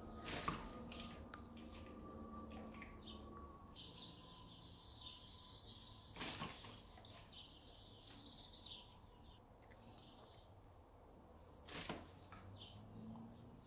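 Quiet room with three sharp knocks several seconds apart, the first as a German shepherd snaps a tennis ball out of the air in its jaws. A soft high hiss runs through the middle.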